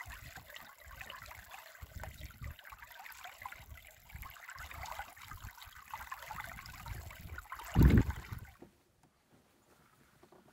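Water rippling and splashing along a canoe's bow as it glides across calm water, with wind buffeting the microphone in low rumbles. A brief loud low rumble comes about eight seconds in, and the water sound drops away soon after.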